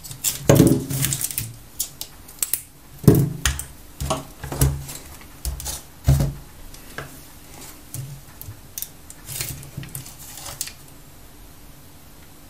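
Loose Panasonic CGR18650CG 18650 lithium-ion cells clicking and knocking against each other and the mat as they are lined up by hand. After that come lighter, sparser clicks as the multimeter and its test leads are handled, dying away about ten seconds in.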